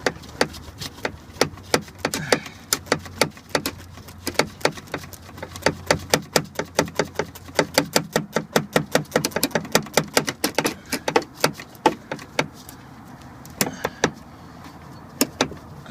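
Ratchet working a 10 mm bolt loose on the gear-shift cable mounting: a fast, even run of clicks for about eleven seconds, then a few more clicks near the end.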